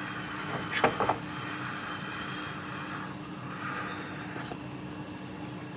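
A person sipping tea from a small cup: two short slurps about a second in, then a breathy exhale near four seconds, over a steady low hum.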